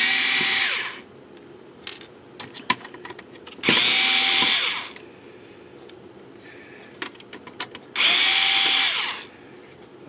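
Homemade electric screwdriver running in three short bursts of about a second each, its motor whirring up and winding down each time, with light clicks of handling between the bursts.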